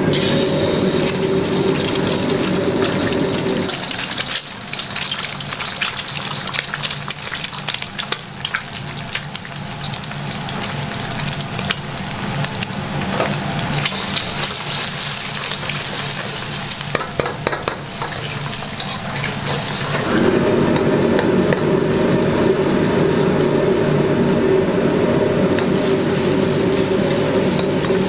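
Raw eggs frying in hot oil in a wok, crackling and sizzling as they are broken up and stirred with a metal ladle, with scattered clicks of the ladle on the pan. Under it runs the steady low roar of the gas wok burner, which drops away about four seconds in and comes back around twenty seconds in.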